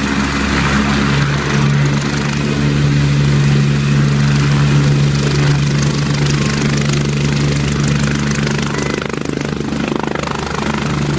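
Helicopter running on the ground with its rotor turning ahead of take-off: a loud, steady drone with a strong low hum.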